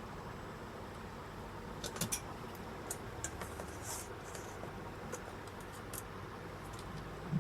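Light clicks and scratches from small tools being handled and set on a repair bench, a handful of sharp ticks from about two seconds in, over a steady low hum.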